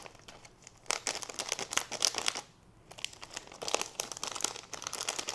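Thin plastic packaging bag crinkling and rustling as it is handled and worked open by hand, in two spells of dense crackling with a short pause a little past the middle.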